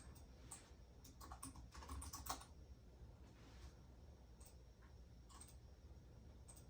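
Faint typing on a computer keyboard: a quick run of keystrokes about a second in, then a few scattered clicks.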